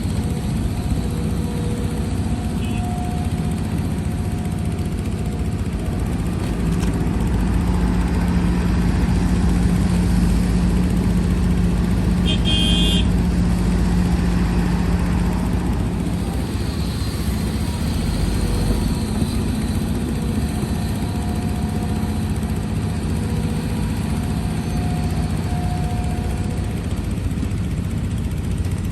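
Heavy diesel earthmoving machinery running steadily, with an engine working harder for several seconds in the middle. A brief high-pitched squeak comes about twelve seconds in.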